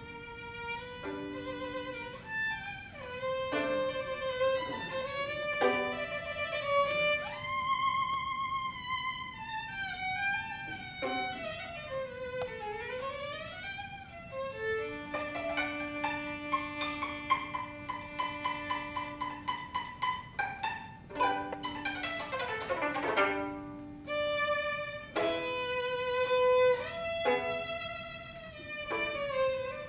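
Violin playing a virtuoso classical piece: a singing melody with vibrato and slides, and rapid runs and arpeggios about two-thirds of the way through.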